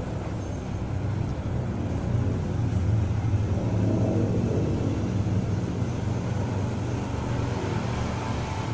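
A steady, low engine rumble, like a motor vehicle running, swelling slightly a couple of seconds in and then settling.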